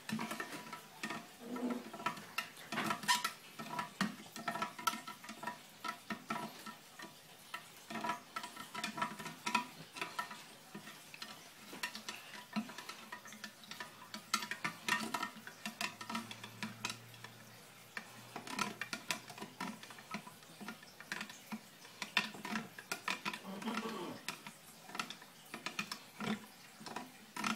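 Water being stirred in a small Sea-Monkeys tank to dissolve the water-purifier powder. The stirrer gives a steady run of quick, irregular clicks and taps throughout.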